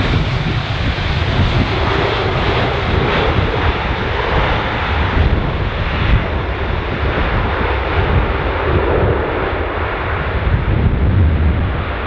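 Airbus A330 jet engines during the landing roll just after touchdown: a steady rush of jet noise, with gusty wind rumbling on the microphone underneath.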